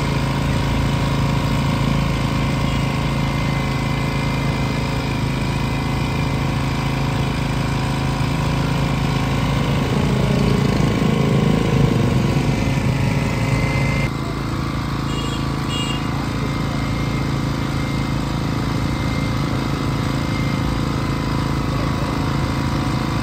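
An engine running steadily, an even low hum with a slight rhythmic pulse; the sound changes abruptly and drops a little in level about fourteen seconds in.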